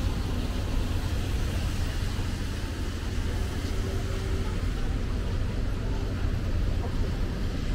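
Steady city street ambience: an even hiss over a low rumble, with no single event standing out.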